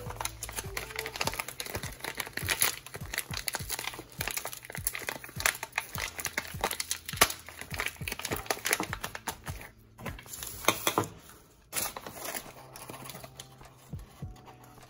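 A shiny coffee bag crinkling as it is handled and opened: a dense run of crackles, with brief lulls about ten and twelve seconds in.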